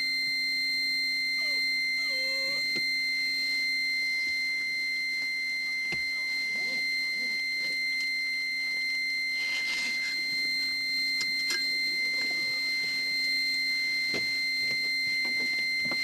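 A continuous high-pitched electronic warning tone, one steady pitch held unbroken.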